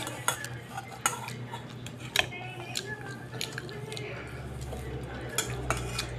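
Metal fork clinking and scraping against a non-stick rice cooker pot as noodles are scooped out, in scattered sharp taps a few times a second.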